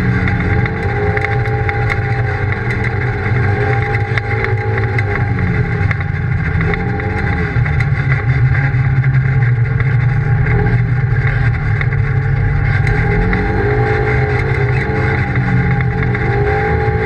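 Polaris RZR side-by-side's engine running on a dirt trail, heard from inside the cab over a steady low rumble, its note rising and falling several times as the throttle is worked.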